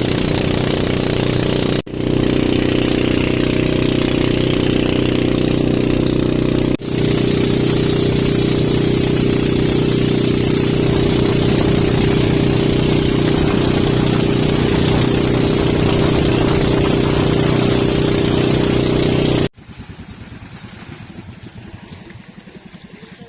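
Jet ski engine running steadily at speed, with heavy wind and spray noise. It breaks off abruptly twice, then drops suddenly to a much quieter background near the end.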